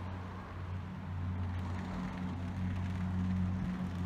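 A motor running with a steady low hum that grows a little louder in the second half.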